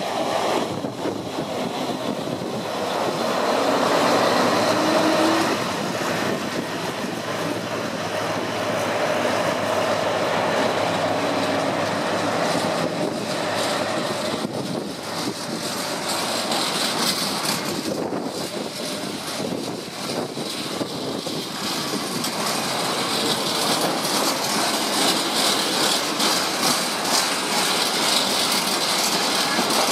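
Class 60 diesel freight locomotive passing slowly, followed by its long train of freight wagons rolling by. The wheels rumble continuously over the track, with clicks over the rail joints.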